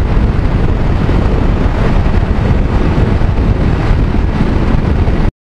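Wind rushing over the microphone of a motorcycle riding at expressway speed, a dense steady noise heaviest in the low end; it cuts off suddenly near the end.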